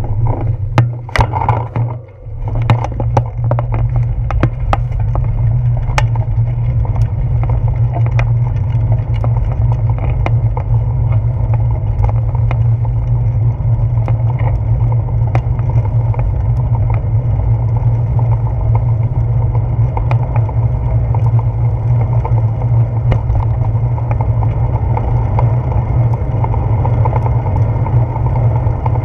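Wind and road rumble on a handlebar-mounted camera as a bicycle rolls along, a steady low rush. Clicks and knocks from the bike and mount going over the road surface, thickest in the first few seconds.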